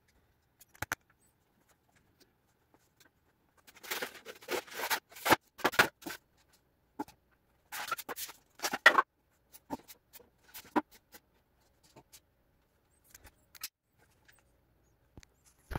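Pieces of foam board scraping and rubbing against each other in a run of irregular scrapes as a hot-wire-cut letter B is worked free of its foam panel, with a few light knocks and clicks around them.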